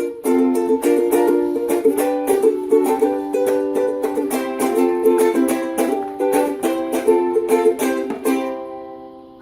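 Music of quick plucked-string notes, which stops about eight seconds in and rings out to a fade.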